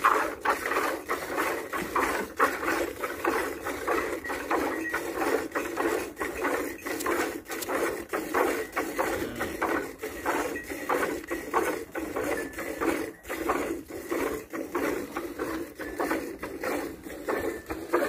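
Hand-milking a cow: streams of milk squirting rhythmically into a steel bucket, a few squirts a second, going steadily throughout.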